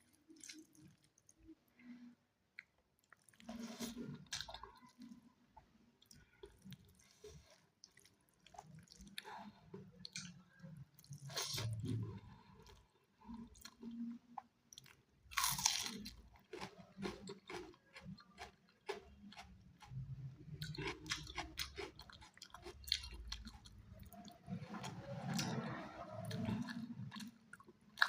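Close-miked chewing and biting of a chicken leg: irregular wet chewing with sharp crunchy bites, the loudest crunch about halfway through.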